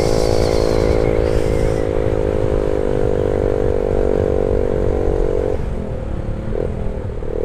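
Yamaha New Vixion Advance's 150 cc single-cylinder engine running steadily while riding, over a heavy wind and road rumble. About five and a half seconds in the engine note drops and wavers briefly, then steadies again.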